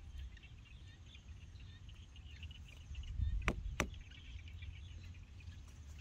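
Faint chirping of insects over a steady low rumble, broken a little past halfway by two sharp clicks about a third of a second apart.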